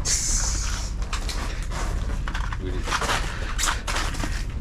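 Handling noise: a brief rustling hiss at the start, then scattered knocks and clicks, over a steady low rumble.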